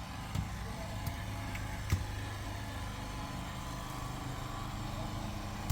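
An engine running steadily at idle, a low even hum, with a few sharp clicks or knocks over it, the loudest about two seconds in.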